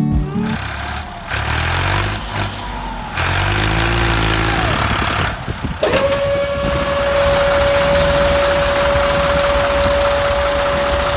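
Truck engine running, its pitch rising and falling for the first few seconds. From about six seconds in, a single steady whining tone holds over the engine noise.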